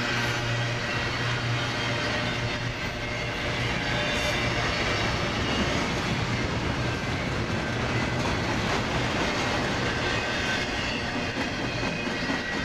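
BNSF freight train passing, its railcar wheels running steadily over the rails.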